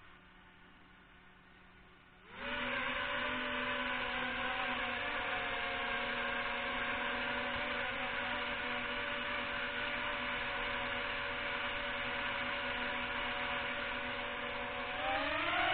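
Hubsan X4 H107 micro quadcopter's motors and propellers whirring. It is faint at first, then jumps to a steady high whine about two seconds in as the motors speed up, and rises in pitch again near the end.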